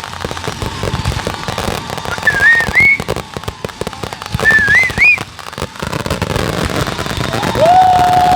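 Fireworks crackling and popping in rapid, dense succession, with two short wavering whistles that rise in pitch about two and four and a half seconds in, and a long steady whistle starting near the end.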